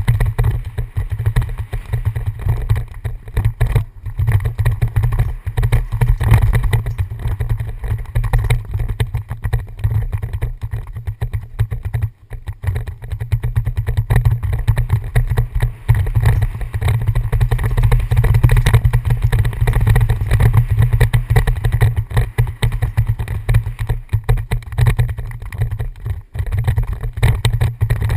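Wind buffeting a helmet-mounted camera's microphone on a fast downhill mountain-bike run, a loud, constantly fluctuating low rumble, with the bike's tyres and frame rattling over the dirt trail beneath it.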